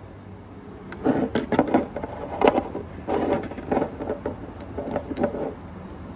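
Irregular knocks, scrapes and rustles, as from objects being handled, over a steady low hum. They come in clusters from about a second in until shortly before the end.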